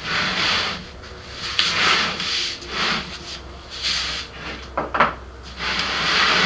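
MDF subwoofer enclosure sliding and scraping across a wooden workbench in several separate pushes, with a sharp wooden knock about five seconds in.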